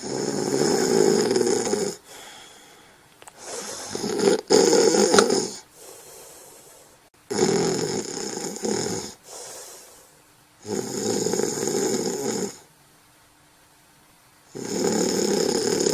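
Someone snoring in deep sleep: five rough snores, each about two seconds long, coming roughly every three and a half to four seconds.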